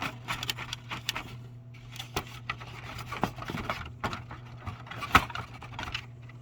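Small clicks, taps and scrapes of a toy truck and trailer being handled and fitted together, with one sharper knock about five seconds in, over a steady low hum.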